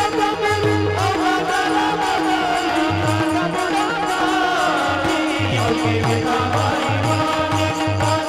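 Warkari devotional singing: men's voices singing together, accompanied by clashing taal hand cymbals and a steady held drone note. Low drum beats keep time, drop out after the first second and come back about five seconds in.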